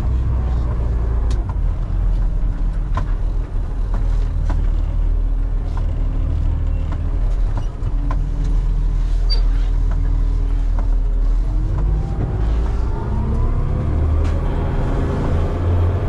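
Loaded concrete mixer truck's diesel engine pulling away, heard from inside the cab: a steady low rumble whose pitch climbs over the last few seconds as the truck accelerates. Scattered light clicks and rattles sound throughout.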